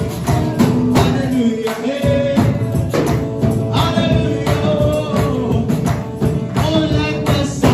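Live gospel praise music: voices singing over a fast, steady percussion beat with a jingling, tambourine-like rattle.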